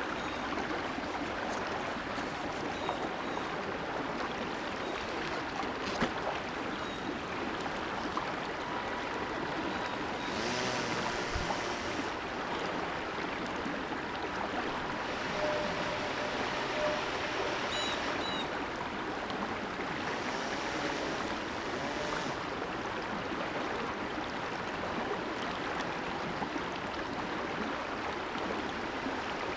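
Shallow creek water rushing steadily over stones. A small RC airboat's electric motor and air propeller whine faintly at times, rising and falling in pitch as the boat runs.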